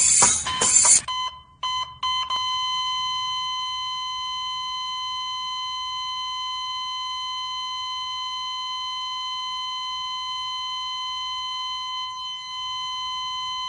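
A loud burst of noise in the first second, cut by a few short gaps, then from about two seconds in a single steady, high electronic beep tone held without a break.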